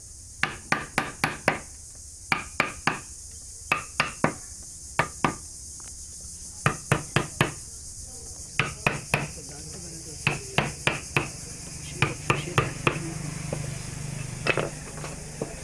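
A hammer tapping a carving chisel into wood in quick runs of three to five sharp strikes, with short pauses between runs. A steady high insect drone runs underneath.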